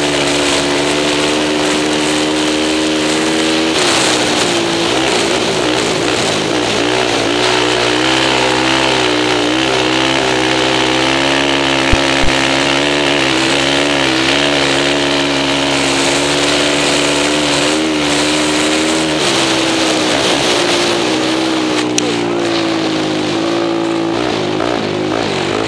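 Suzuki LTR 450 quad's single-cylinder four-stroke engine running at racing speed, heard close up, its pitch wavering up and down with the throttle. Two sharp knocks come about halfway through.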